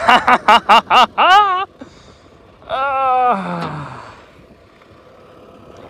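Shouted voices: a quick burst of excited calls, then one long call that slides down in pitch, fading to a faint background.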